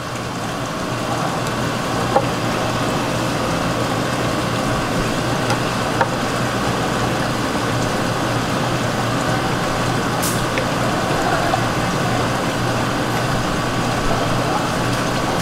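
Steady background din of a fish market: an even hiss with a low, constant machine hum, like pumps and running water, broken by a few light clicks.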